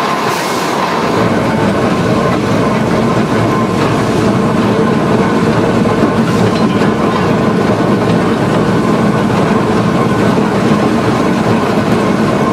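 Climax No. 6 geared steam locomotive running steadily with its train, a loud continuous clatter of the running locomotive and wheels on the track.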